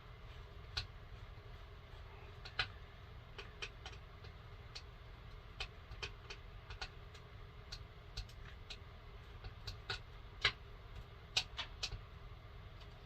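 Irregular light clicks and taps from handling a chainsaw's air filter and its cover, the loudest about a third of the way in and again about three quarters of the way through, over a faint steady low hum.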